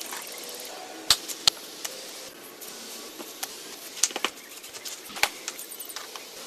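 Asphalt roofing shingles being nailed down: irregular sharp knocks. The loudest come about a second in, around four seconds in and just after five seconds.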